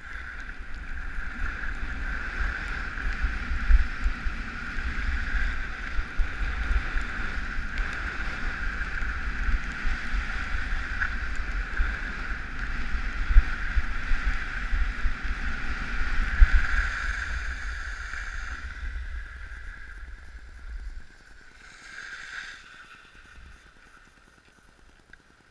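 Wind rushing and buffeting over a camera microphone, with skis hissing over packed snow, during a downhill ski run. The rush dies away in the last few seconds as the skier slows to a stop.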